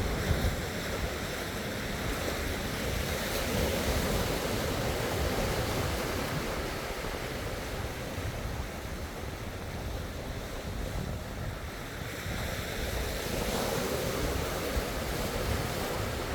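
Sea waves washing against the shore in a continuous surf that swells about four seconds in and again near the end, with wind rumbling on the microphone.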